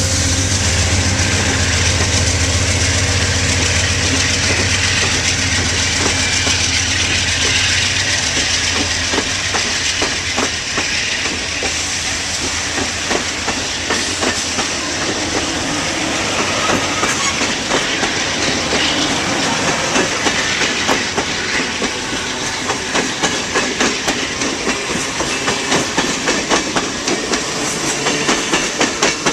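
A train passing: a diesel locomotive's low engine drone for the first dozen seconds fades, and wheels clicking over rail joints take over, falling into a steady clickety-clack rhythm near the end.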